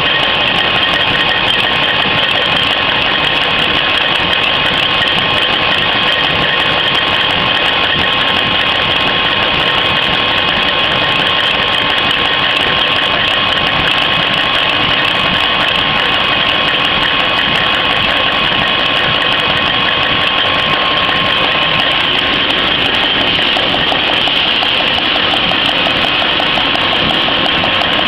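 Paper napkin converting machine and its BPA vacuum pump running steadily: a constant loud mechanical drone with a steady whine over it.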